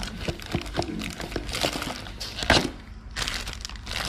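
Clear plastic bag crinkling and a cardboard box rustling as a spinning reel is lifted out of its packaging, with scattered clicks and a sharp crack about two and a half seconds in.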